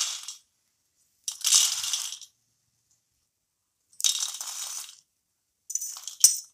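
Crisp fried gond (edible gum) pieces tipped from a perforated steel skimmer onto a steel plate: four short rattling clatters spread across a few seconds, with a sharp click of metal near the end.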